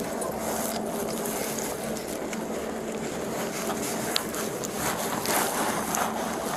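Rubbing and rustling of clothing against a body-worn camera's microphone as an officer searches a handcuffed man's pockets, over the steady hum of an idling vehicle, with a few light clicks.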